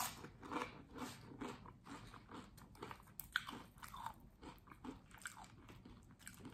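Crunchy chewing of a first bite of salad, the crunches coming about twice a second and growing fainter towards the end.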